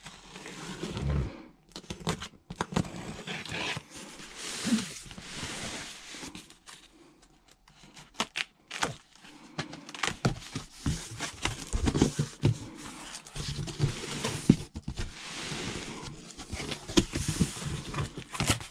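Packing tape being slit and ripped off a cardboard shipping box, then the cardboard flaps pulled open: a run of scraping, tearing and rustling with many small knocks.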